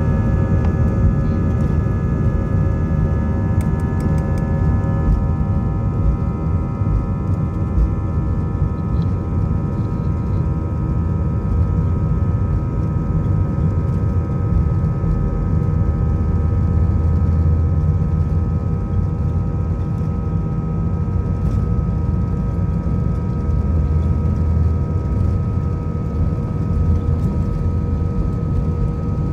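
Airbus A320 jet engines heard from inside the cabin while taxiing: a steady whine of several tones over a heavy low rumble.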